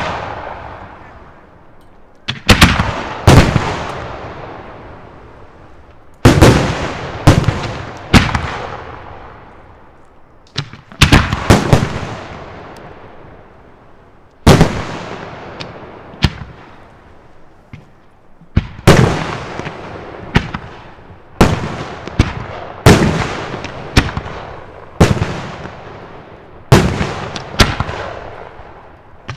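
Large aerial firework shells going off in a display: about twenty loud, sharp bangs at irregular intervals, some in quick pairs, each trailing off in an echoing rumble over a second or two.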